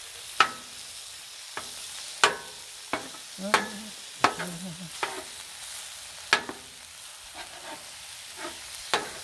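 Ground beef sizzling on a Blackstone steel flat-top griddle while a metal spatula chops and scrapes through it. The blade hits the griddle top with sharp, unevenly spaced clacks, about eight of them.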